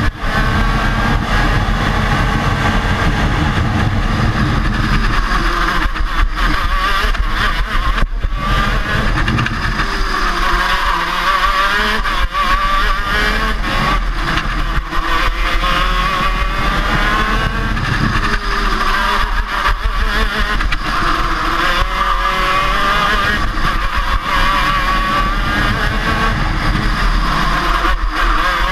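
125cc two-stroke KZ shifter kart engine at racing speed, its note repeatedly climbing and dropping as the revs rise on the straights and fall into the corners.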